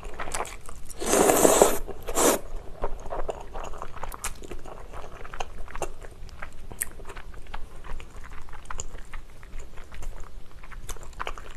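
Spaghetti and Chinese glass noodles in basil pesto slurped loudly about a second in, then close-miked chewing with many small wet mouth clicks.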